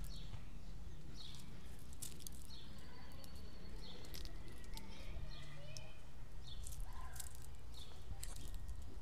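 Outdoor ambience of small birds chirping repeatedly, over a steady low rumble, with scattered sharp clicks.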